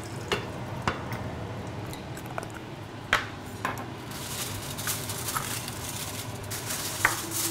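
Knife and kitchen utensils knocking on a cutting board and a steel bowl while a lime is cut: a few sharp, separate clicks and clinks over a steady low hum, with a faint hiss joining about halfway through.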